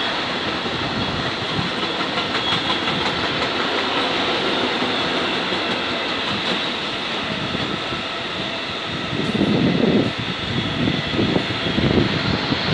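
Loaded freight wagons carrying steel wire coils roll past with a steady rumble of wheels on rail and some clacking over rail joints. From about nine seconds in, the rumble grows rougher and a faint high squeal comes in.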